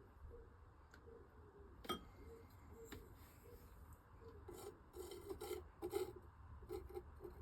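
Palette knife scraping over wet acrylic paint on a painting surface: a sharp tap about two seconds in, then several short, rough scraping strokes in the second half.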